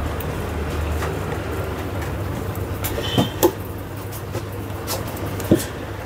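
A few light clicks and knocks of hand tools and metal parts, two close together about three seconds in and one more near the end, as a mixer-grinder motor's cover bolts are tightened. Under them runs a low steady rumble.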